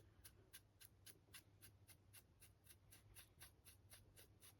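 Near silence: quiet room tone with faint, even ticks about three or four times a second.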